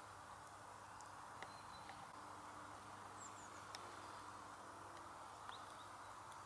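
Quiet outdoor ambience: a steady faint hiss with a few short, high chirps and scattered small clicks.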